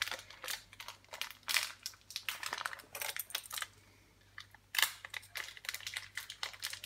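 Clear plastic bag crinkling and small plastic clicks as Lego minifigure pieces are handled, in irregular bursts with a short pause about two-thirds of the way through.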